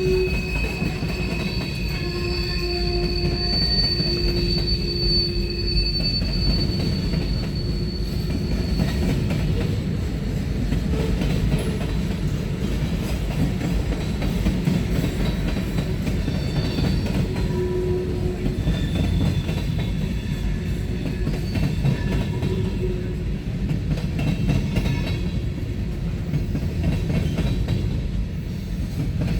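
Freight cars of a manifest train rolling past, with a continuous rumble of wheels on rail and high-pitched wheel squeal that comes and goes, loudest in the first several seconds.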